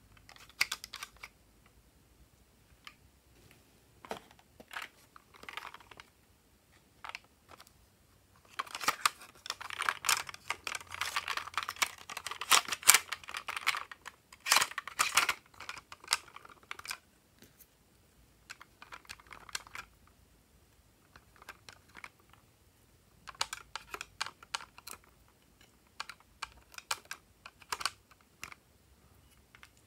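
Quick plastic clicks, taps and scratches of a small makeup applicator scraping eyeshadow out of a plastic toy makeup palette. They come in scattered bursts, with a long dense run about a third of the way in and another near the end.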